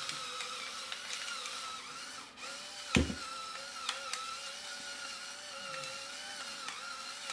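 Battery-powered electric spice grinder running steadily as it grinds seasoning, a small motor whine that wavers slightly. A single sharp knock about three seconds in.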